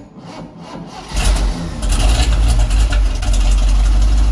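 Tractor engine cranking on the starter, then catching about a second in and running loudly and steadily.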